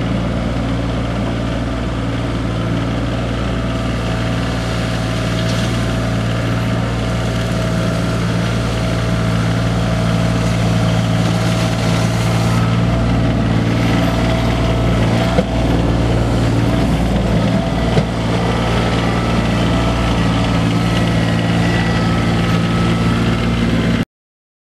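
Kioti CX2510 compact tractor's three-cylinder diesel engine running steadily, with two sharp knocks about fifteen and eighteen seconds in. The sound cuts off suddenly near the end.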